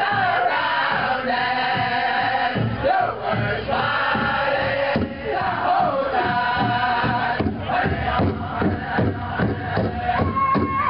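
Powwow drum group chanting together over a steady, even drumbeat on a big powwow drum. About seven seconds in the singing breaks off and the drumbeats carry on alone, and a voice comes back in near the end.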